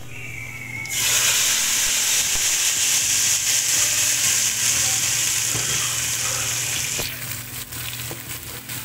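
Tadka of hot oil with fried garlic slices and cumin seeds poured into a pot of cooked mustard greens (sarson ka saag). It sizzles loudly from about a second in, dying down after about six seconds. Near the end, a spoon clicks as the tadka is stirred in.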